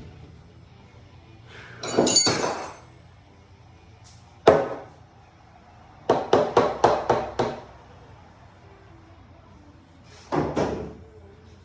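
Hammer blows on the wall framing: a single sharp hit, then a quick run of about six strikes, with a metallic clank and ringing earlier and another knock near the end.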